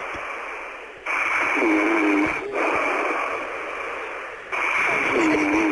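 A woman snoring into a telephone, heard over the phone line: two long snores about three and a half seconds apart, with the line's hiss between them.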